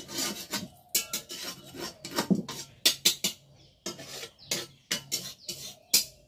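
A metal spatula scraping and stirring in a black iron kadai: a quick, uneven run of scraping strokes, about three a second.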